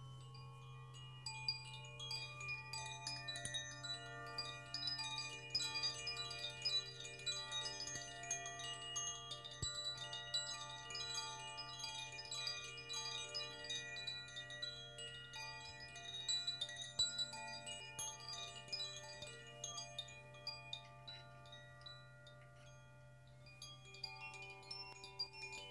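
Hanging metal wind chimes stirred by hand, tinkling with many overlapping ringing notes that thin out and then pick up again near the end, over a steady low hum.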